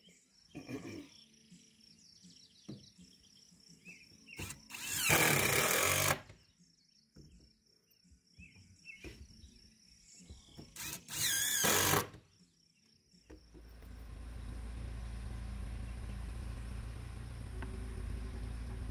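Cordless drill run in two short bursts, about five and eleven seconds in, each lasting a second or so, the second with a wavering whine, with a few small clicks in between. After about thirteen seconds a steady low rumble takes over.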